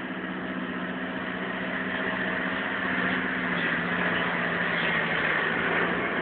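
Tracked hydraulic excavator's diesel engine running steadily under load as the boom digs into deep snow. It gets a little louder about halfway through.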